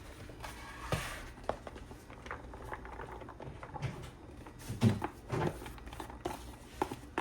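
Scattered small clicks, taps and knocks of kitchen items being handled, with a couple of heavier thumps about five seconds in.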